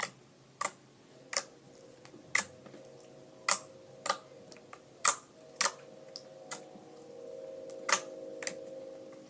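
Glossy clear slime worked by hand, giving sharp clicking pops of trapped air roughly every half second. A faint steady hum comes in about a second in and grows louder near the end.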